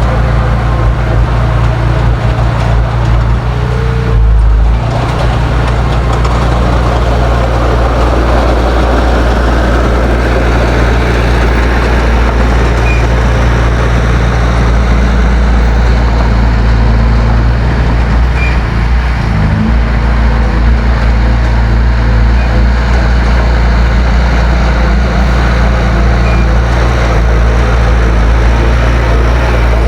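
Heavy diesel engine of earthmoving equipment running steadily under load, with a brief low surge about four seconds in and a short dip followed by a change in pitch near the middle.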